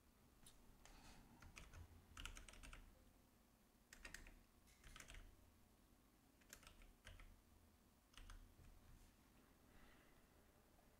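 Faint computer keyboard typing: short runs of key clicks every second or two.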